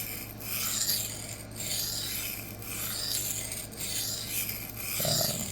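K110 steel knife blade being stroked back and forth across the 400-grit side of a Rikon CBN (cubic boron nitride) sharpening plate: a gritty, rasping scrape repeated at about two strokes a second.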